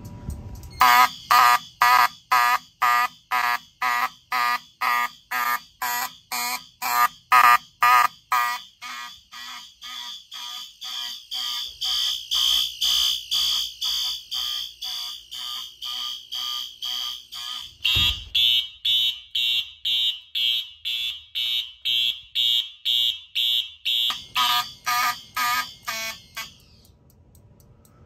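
Fire alarm horns and horn-strobes on a conventional panel sounding together in evenly pulsed bursts about twice a second, after a smoke detector has been set into alarm. A steady high electronic tone joins about halfway through, with a short low thump a few seconds later. Everything cuts off suddenly shortly before the end.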